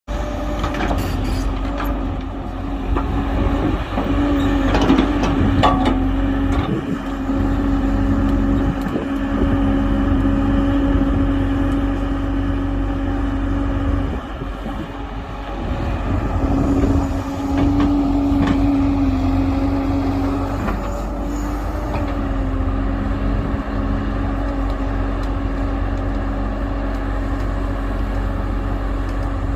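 Excavator's diesel engine running under varying load, with a steady whine on top, easing off briefly about halfway through. A few knocks sound in the first several seconds.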